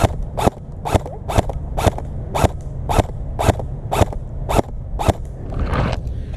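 Airsoft rifle firing single shots at a steady pace, about two a second, around a dozen in a row, stopping about five seconds in.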